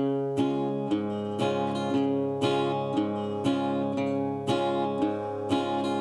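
Instrumental music led by a strummed acoustic guitar, with a steady strum about twice a second.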